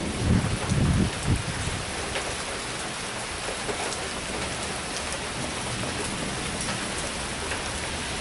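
Heavy thunderstorm rain pouring steadily, with a low thunder rumble fading out in the first second or so.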